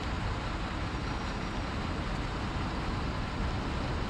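Steady street-level engine noise, an even rumble with a hiss over it. No single event stands out.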